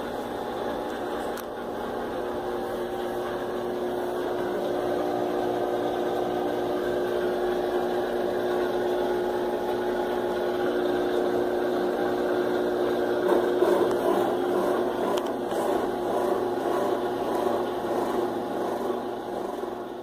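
Electrolux LF11 top-loading washing machine in its spin cycle: a steady whir of the motor, belt and spinning basket with a low hum, growing gradually louder. It spins without the high "iuiuiu" squeal, its loose motor and pulley bolts retightened and its belt replaced.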